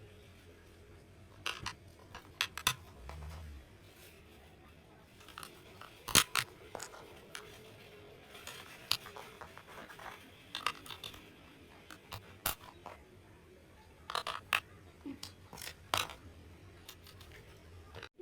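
Hands handling a label printer and its labels: scattered clicks, taps and light scraping, the sharpest click a little after six seconds in.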